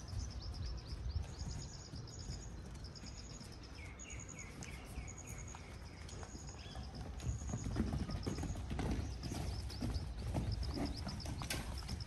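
Horse hooves clopping, the steps getting louder and closer together from about two-thirds of the way in. Quick, high repeated chirping runs over them.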